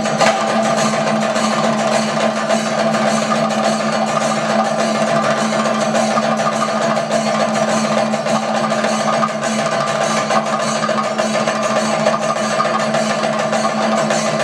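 Chenda drums of a thayambaka ensemble playing a fast, dense, unbroken run of stick strokes, with ilathalam hand cymbals ringing along and the drum heads holding a steady ring underneath.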